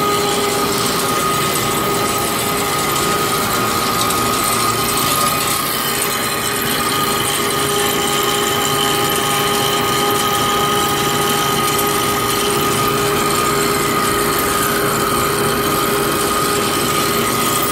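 Hankook Protec-9NC CNC lathe taking a heavy roughing cut on a shaft at 0.350 in (8.89 mm) depth of cut and 0.020 in per revolution feed. The machine runs steadily with a constant whine of several tones over the cutting noise.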